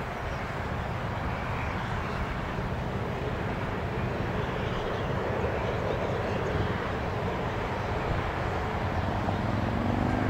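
Steady road-traffic rumble as cars drive past close by, growing slightly louder, with one car going past near the end.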